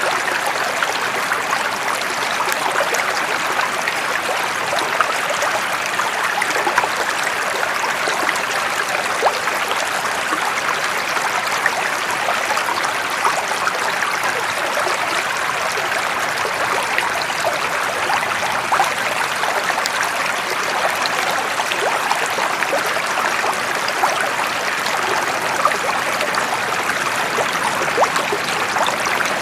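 Running water of a small stream, a steady babble with many small splashes and drips in it.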